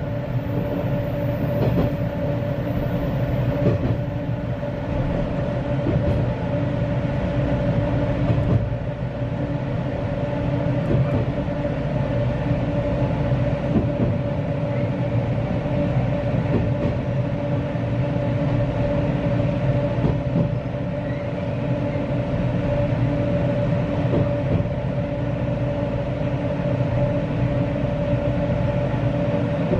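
Former JR Nanao Line electric multiple unit running, heard from the driver's cab: a steady rumble with a constant hum and scattered clicks of the wheels over rail joints.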